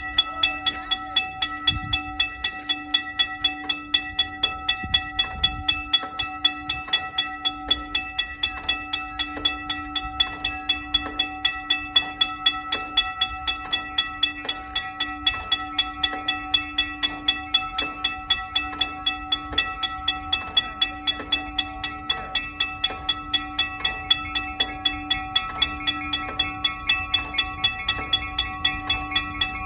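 Railroad grade-crossing bell ringing fast and steady, about three to four strikes a second, with its ringing tone held between strikes.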